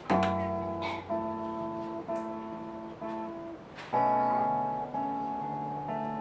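Acoustic guitar playing a slow instrumental intro: a chord struck about once a second and left to ring between strokes.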